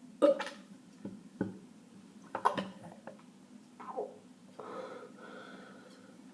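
A person burping and hiccupping from drinking cup after cup: about six short burps and hiccups, the first the loudest, then a longer drawn-out breathy sound about four and a half seconds in.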